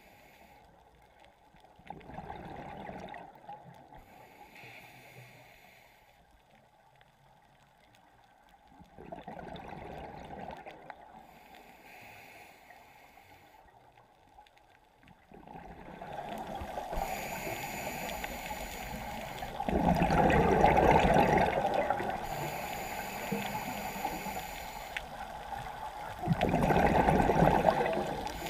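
Scuba diver's regulator breathing heard underwater: bursts of exhaled bubbles gurgling past the microphone about every six to seven seconds, getting louder in the second half, with a fainter hiss between breaths.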